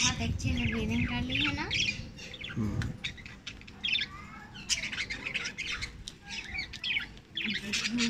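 Budgerigars chattering: a steady run of short, quick chirps and squawks, busiest in the first two seconds and again near the end.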